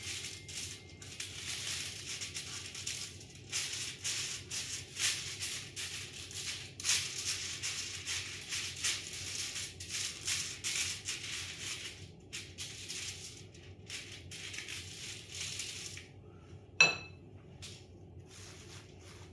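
Silicone pastry brush swept back and forth over aluminium foil on a baking tray: a dense, crinkly rustle of quick strokes that stops a few seconds before the end. Then one sharp click, the brush being set down in a small ceramic dish.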